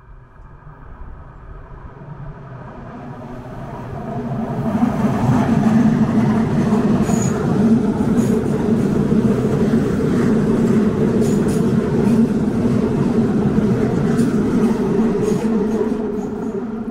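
A red electric multiple-unit regional train passing close by. It grows louder over the first few seconds, runs loud and steady with a low hum and a few light clicks for about ten seconds, then fades as it pulls away near the end.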